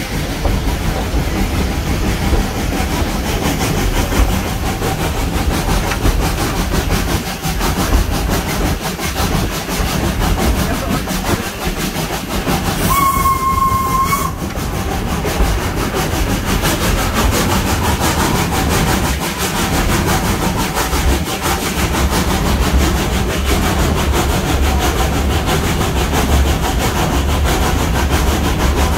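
Steam whistle of the 1927 SACM 040 T 17 (0-4-0 tank) steam locomotive giving one steady blast of just over a second, just under halfway through, as a warning before a tunnel. Under it the train keeps running uphill with a continuous rumble and rail clatter, heard from an open carriage right behind the engine.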